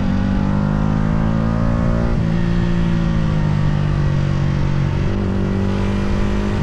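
Yamaha R125's 125cc single-cylinder four-stroke engine pulling under way. Its note climbs and then steps down in pitch about two seconds in and again about five seconds in.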